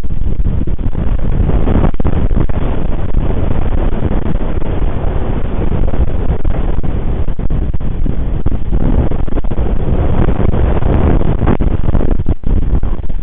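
Strong wind buffeting the nest camera's microphone: a loud, steady rumble of gusts, heaviest in the low end.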